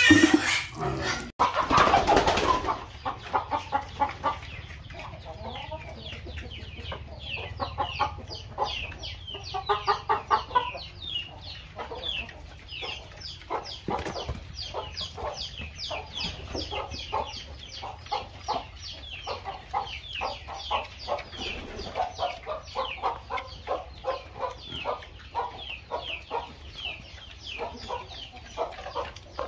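Chickens clucking, with a constant stream of rapid, high, downward-falling peeps. It opens with a couple of seconds of a louder, rougher animal noise that cuts off suddenly.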